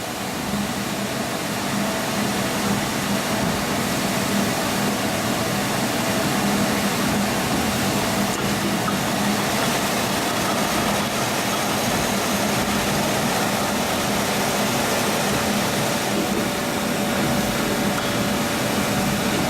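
A machine running steadily: an even rushing noise with a low hum under it.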